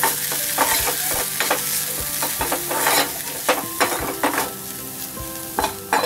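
Steel spatula scraping and tapping against a pan, about two or three strokes a second, as crumbled paneer is stirred in a little hot oil, with a steady light sizzle underneath.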